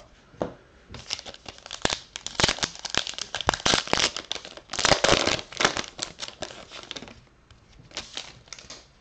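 Wrapper of a baseball card pack being torn open and crinkled by hand: a run of crackling rips and rustles, loudest about five seconds in, then a few softer crinkles near the end.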